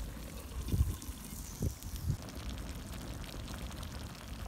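Three dull knocks from the clay tagine and its lid being handled, all in the first two seconds, over a low steady rumble.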